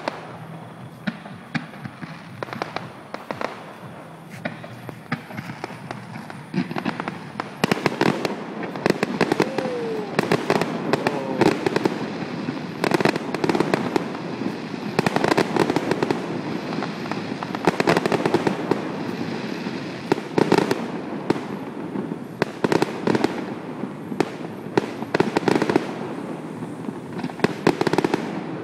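Aerial fireworks display: shells bursting in a rapid series of bangs and crackles, growing denser and louder about seven seconds in.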